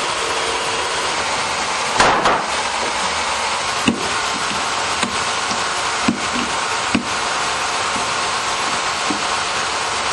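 Hatchet blade chopping into a sawn wooden plank, about six separate blows, the first and loudest about two seconds in, to cut out a shell fragment embedded in the timber. A steady machine noise runs underneath.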